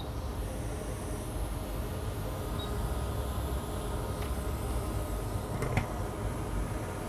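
Steady blowing air and fan noise from bench equipment, with one sharp click a little before the end.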